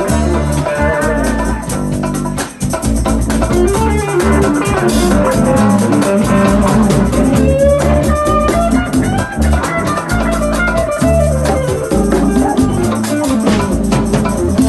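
Instrumental music: guitar playing over bass and a drum kit.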